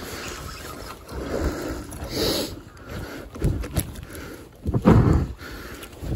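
Close handling noise from a spinning reel being cranked and the rod worked against a hooked yellowtail: irregular rustling and bumps, loudest about three and a half and five seconds in.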